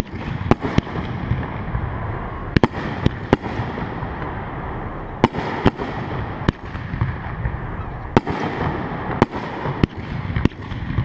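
Aerial fireworks shells launching and bursting: about a dozen sharp bangs at uneven intervals, some coming in quick pairs.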